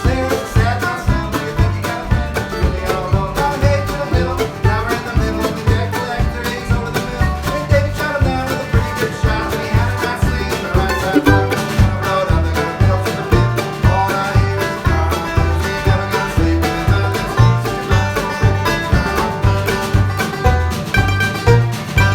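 A band playing upbeat music: quick picked string notes over a steady bass beat of about two beats a second.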